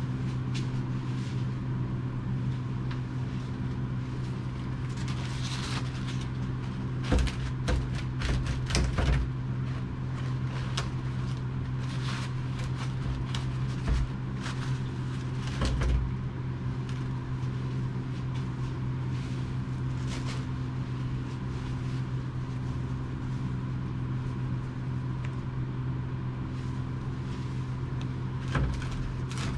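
A steady low mechanical hum, with short knocks and clatters from handling: a cluster about seven to nine seconds in, single ones about fourteen and sixteen seconds in, and another near the end.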